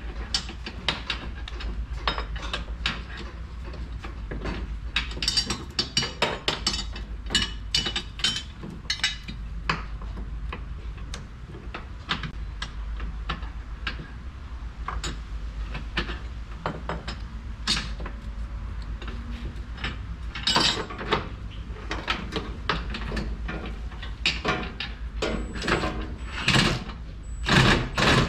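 Hand tools working on a car's rear suspension: irregular metallic clicks and clanks of a socket wrench on an 18 mm bolt, louder and more frequent near the end, over a steady low hum.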